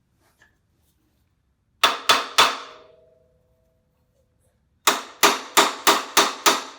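Hammer blows on metal, knocking the mounting bolt through the rear shock of a Yamaha Raptor 700 ATV while it is still not lined up: three quick strikes with a short ring after them, then a run of seven strikes about three a second.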